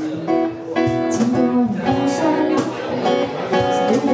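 A band playing a song: strummed guitar and drums with a melody line over them.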